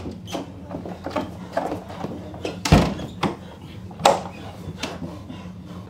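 A wooden door slammed shut with a heavy thud about three seconds in, then its metal barrel bolt shot home with a sharp clack about a second later, among a run of knocks and scuffles against the door.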